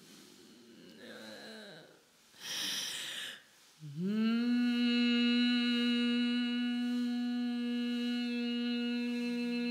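A voice humming a long held note, scooping up into it about four seconds in and then holding it steady, after a short breathy hiss; a second, lower held note joins near the end.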